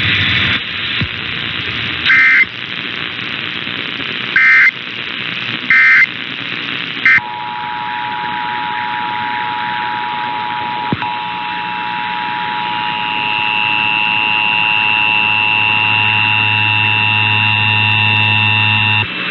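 Emergency Alert System broadcast signals over radio hiss: three short warbling data bursts, the digital end-of-message code, then the steady two-tone EAS attention signal. Near the end a higher steady tone and a low hum join it.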